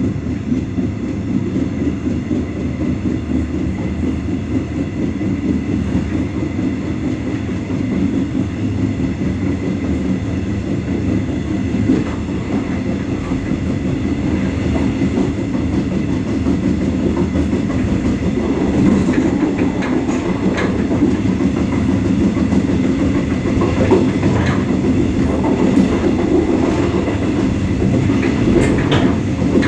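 Mugunghwa passenger train running on the line as it gathers speed after departure, heard from inside the carriage: a steady low rumble with wheels clicking over rail joints and points. The clicks come thicker and the sound grows a little louder in the second half.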